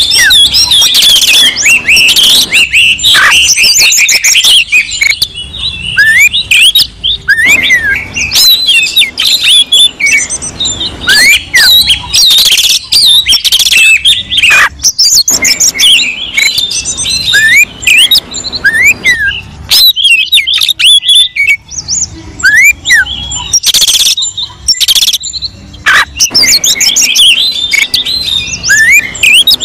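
Oriental magpie-robin (kacer) song: loud, rapid phrases of varied sweeping whistles and harsh notes, broken by short pauses every few seconds. It is the agitated, territorial kind of song used to provoke other kacer into singing.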